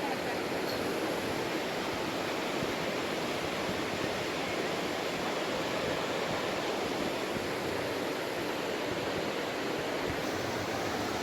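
Steady rush of the Maligne River's water and falls pouring through the canyon, an even unbroken wash of noise.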